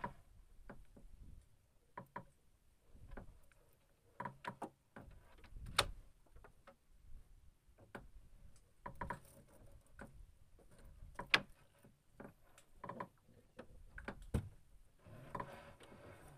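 Scattered, irregular clicks and knocks as a fishing longline is hauled in by hand and laid into a box in a small wooden boat.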